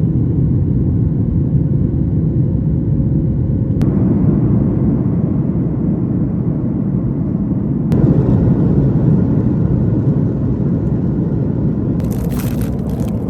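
Steady low rumble of a moving vehicle heard from inside, changing abruptly in texture twice, with a brief spell of crackling noise near the end.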